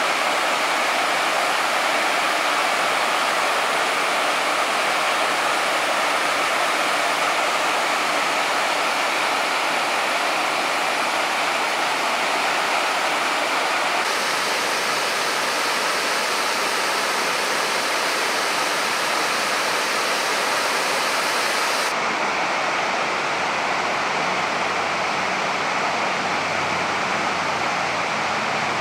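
Man-made waterfalls cascading over rock ledges into a lagoon: a steady rush of falling water whose tone shifts slightly twice.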